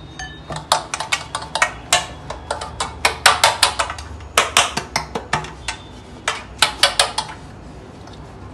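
Dark non-stick metal cake tin being tapped and knocked over and over while it is tilted and shaken to coat its greased sides with flour. The taps come fast and unevenly in little clusters and stop about seven seconds in.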